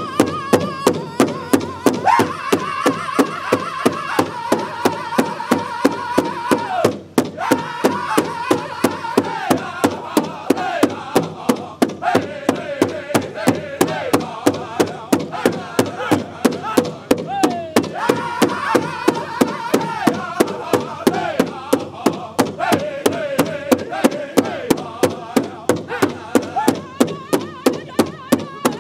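Powwow drum group: several singers strike a large communal hide drum in unison, about three beats a second, while singing together in falling melodic phrases. The singing breaks off briefly about seven seconds in, while the drumbeat keeps going.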